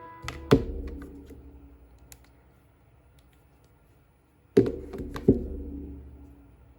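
Two pairs of sharp knocks about four seconds apart, each followed by a low rumble that dies away, like handling knocks on a hard surface.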